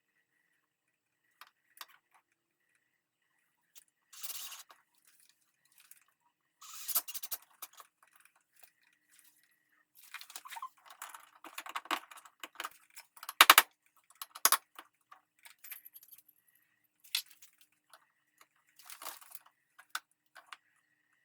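Intermittent handling noises from electrical work: rustling, scraping and clicks, with one sharp, loud click about thirteen seconds in, over a faint steady high whine.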